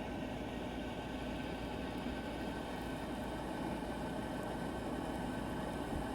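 Steady low rushing background noise with no distinct calls or knocks.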